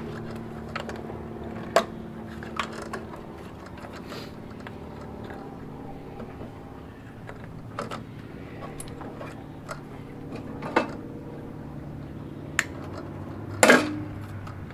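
Hands unplugging wiring-harness connectors and pulling cables inside a label printer's metal chassis: scattered light clicks and rustles over a low steady hum, with a louder knock near the end.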